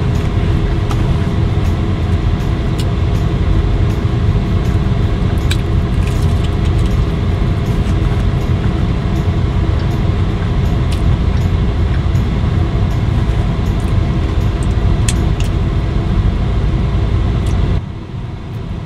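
Steady drone of a car heard from inside its cabin, with a few steady tones in it and scattered light clicks. The drone drops off sharply near the end.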